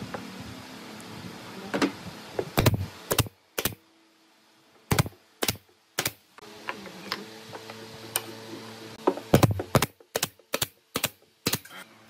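Irregular sharp clicks and knocks of pine boards and trim pieces being handled and set against each other during birdhouse assembly, with short quiet gaps between them and a faint steady hum under the middle part.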